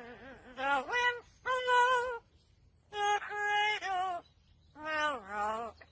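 A voice making drawn-out, singing-like notes in about five phrases, each half a second to a second long, sliding in pitch, with short pauses between.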